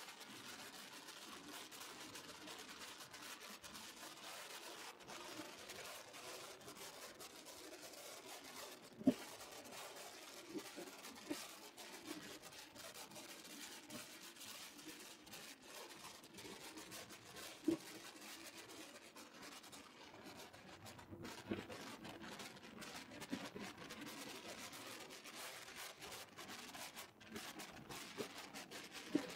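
Faint, even scratchy rustling with a few sharp knocks, the loudest about nine and eighteen seconds in: wind and mount noise on a camera riding on a moving motorcycle.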